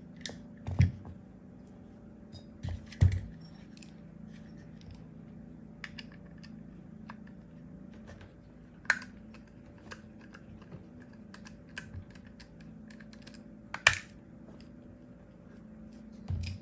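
Small metallic clicks and taps of a screwdriver working the grip-module screws of a Staccato P pistol and the gun being turned in the hands, with a few louder knocks about one, three, nine and fourteen seconds in. A steady low hum lies underneath.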